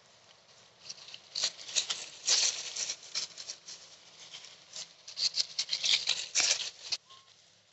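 Rustling and crackling in quick irregular bursts, starting about a second in and stopping abruptly near the end.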